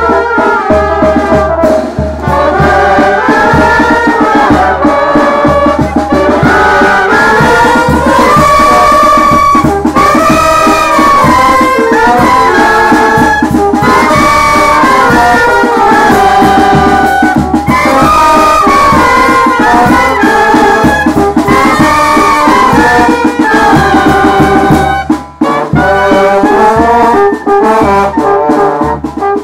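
Brass band playing loudly: trumpets and trombones carrying a moving melody over a steady beat.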